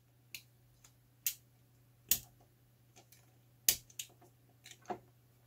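Utility-knife blade clicking and scraping on the circuit board of a cable-TV tap while cutting through a copper foil trace: about seven sharp clicks, unevenly spaced, the loudest a little after two seconds and near four seconds in. A faint low hum runs underneath.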